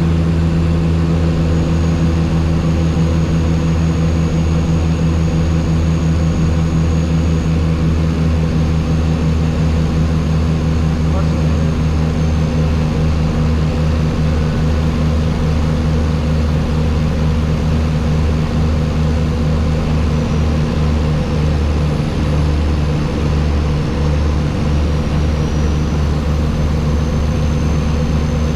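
Turboprop aircraft engines and propellers running with a steady, loud drone of low pitched tones.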